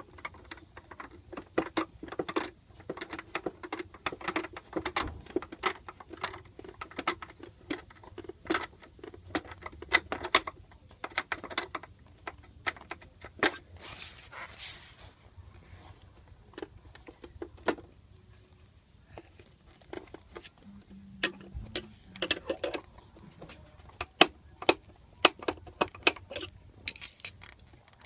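Irregular clicks, taps and rattles of small hard parts being handled, as in working on a paper shredder's mechanism by hand, with a brief low hum about 21 seconds in.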